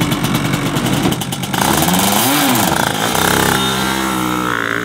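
Two-stroke shifter kart engine running with a rapid, even popping, then revving up and back down, and climbing steadily in pitch near the end as the kart pulls away under throttle.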